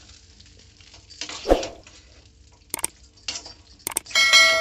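A steel ladle stirring and scraping thick eggplant chutney in an aluminium pan, with a scrape about a second and a half in. Near the end come a couple of clicks and then a bright ringing bell chime, the sound effect of an on-screen subscribe-button animation, which is the loudest sound.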